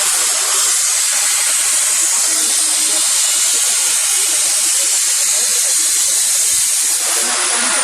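A small high-speed electric motor running with a loud, steady hiss. Its high whine holds level and begins to wind down near the end.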